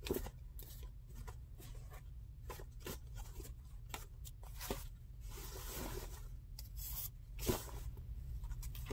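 Hands rummaging in a cloth drawstring sack: irregular rustling and scraping of the fabric and its contents, a little louder around the middle and near the end.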